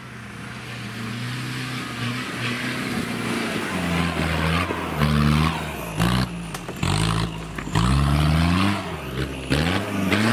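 Off-road 4x4's engine revving hard in repeated bursts as it climbs a muddy slope and comes close, its pitch rising and falling every second or so and growing louder. A few sharp knocks sound in the second half.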